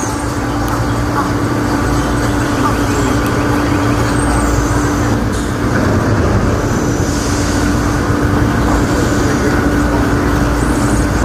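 A motor vehicle running steadily: a continuous low rumble with a steady hum, like a bus or tram engine heard on board or close by.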